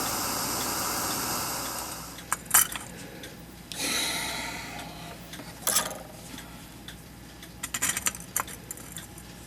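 A steady hiss that fades out about two seconds in, with a shorter hiss at about four seconds. Light metallic clicks and taps of tools on the clock movement's brass parts come at scattered moments as a soldered piece is worked loose.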